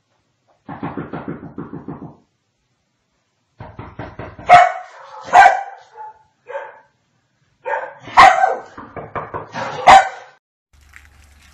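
Komondor barking: a low rumble about a second in, then two bouts of loud barks, the sharpest ones around the middle and near the end.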